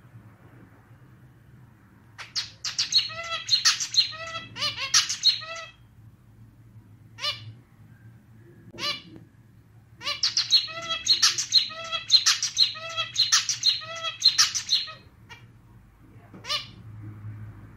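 Male zebra finch singing in a rhythmic, slightly out-of-tune clarinet-like style. Two bouts of repeated notes, each a few seconds long, with single short calls between them and one more near the end.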